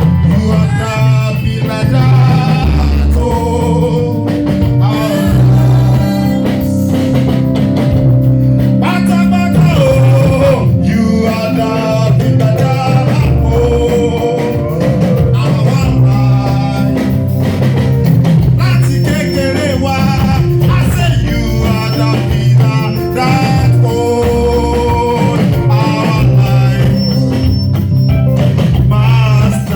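Live band music with singing: a loud, steady groove with bass and guitar under voices.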